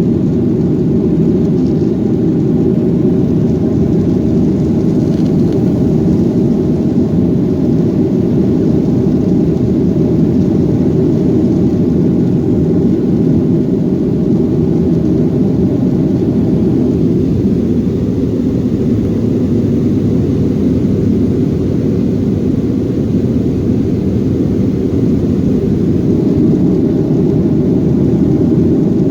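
Jet airliner cabin noise: a loud, steady, low rumble of the engines and rushing air, heard from inside the cabin.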